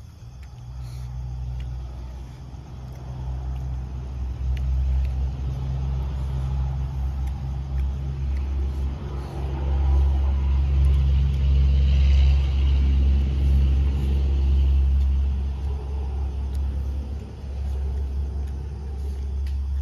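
A low, steady, engine-like rumble that grows louder about ten seconds in and eases back a few seconds later.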